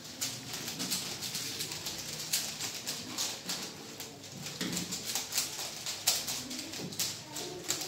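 Several 3x3 Rubik's cubes being turned quickly by hand at once: a continuous, uneven clatter of plastic clicks.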